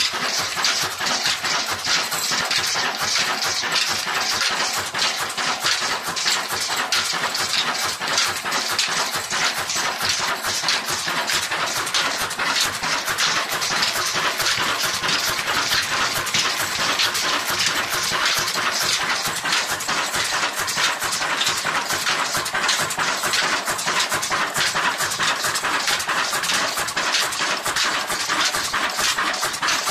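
Old Ruston Hornsby diesel engine running steadily, with a dense rapid clatter, while belted to a flour mill.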